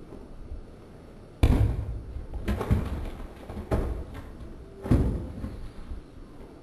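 Heavy blows of a long-handled hammer against a dry-stacked wall of painted ash blocks, knocking it down. There are about five loud knocks over some three and a half seconds, starting about a second and a half in, each followed by the thud and clatter of blocks.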